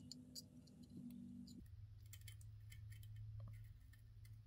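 Near silence: a faint low electrical hum with a few faint, scattered ticks.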